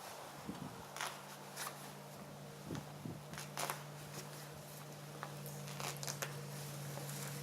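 Feathers being plucked by hand from a drake wood duck: irregular short crackling snaps and tears as quills pull out of the skin. A steady low hum runs underneath from about a second in.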